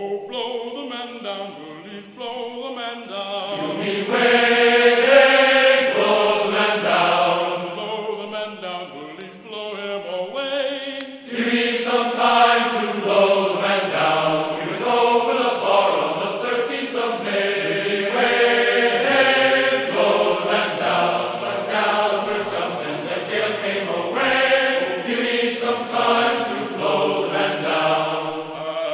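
Background music: voices singing a slow song together, with pitch sliding from note to note.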